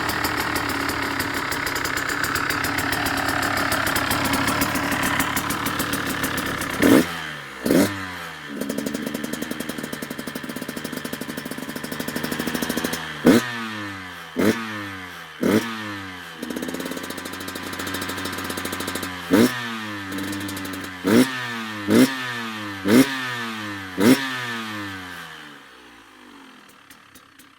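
Stock 2018 KTM 125 SX two-stroke single-cylinder engine running, then blipped ten times in quick throttle stabs, the revs dropping back after each. The sound dies away near the end.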